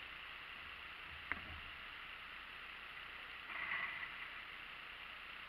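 Kayak sitting on calm water: a steady faint hiss, one sharp knock about a second in, and a short, louder rustle just past halfway.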